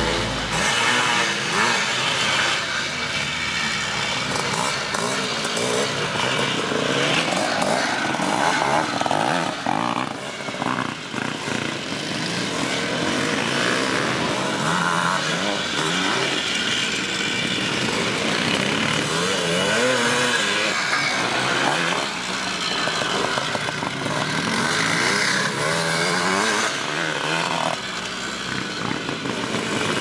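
Vintage off-road motorcycle engines running hard, with a buzzing tone that keeps rising and falling in pitch as the throttle is opened and closed through the gears.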